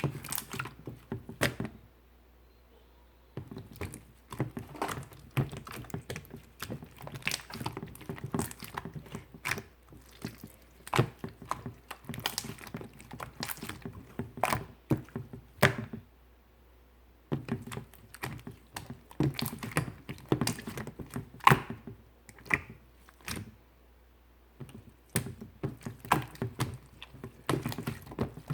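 Clear slime being pressed and squished by hand, giving irregular clicks and pops of trapped air, with a few short pauses.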